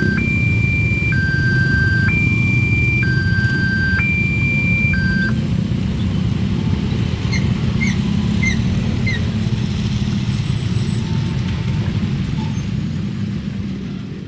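Railway level-crossing alarm sounding a hi-lo two-tone, about a second per tone, which stops about five seconds in. Under it runs the steady low rumble of road traffic at the crossing.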